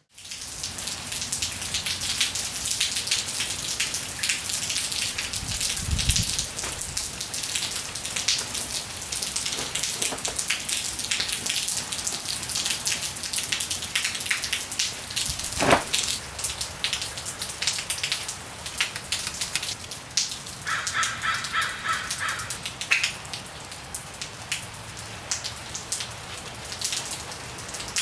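Steady rain falling outside, a dense hiss full of small drop ticks. About 21 seconds in a bird calls in a quick run of repeated notes, and a single brief sharp sound stands out near 16 seconds.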